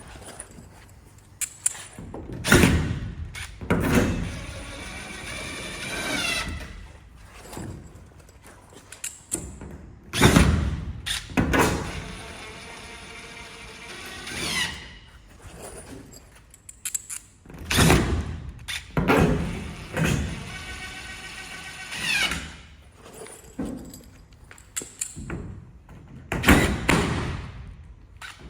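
Bolts being driven into the greenhouse frame through the polycarbonate panels: a power driver spins up in several short rising whines, between a dozen or so heavy thumps and knocks as the panels and frame are handled.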